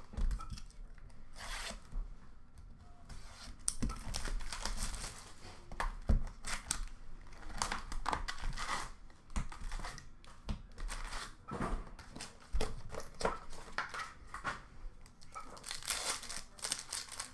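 Trading-card packs from a Metal Universe hockey box being torn open by hand, their wrappers crinkling and rustling in irregular bursts, several of them louder.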